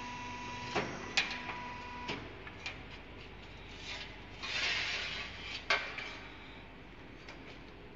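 A steel strip handled on a diamond saw blade stress testing machine: several sharp metal clinks and knocks, and about four and a half seconds in a scraping rub of steel sliding over the machine's steel table. A steady machine hum stops about two seconds in.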